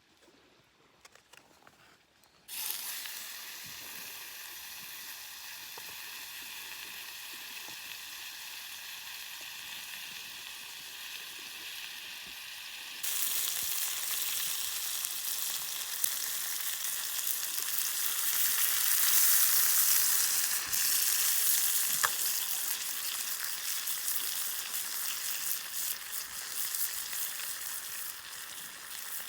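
Meat sizzling over a campfire: a steady frying hiss starts suddenly a couple of seconds in as the meat goes onto the heat. It grows louder about halfway through, with a sharp crack a little later.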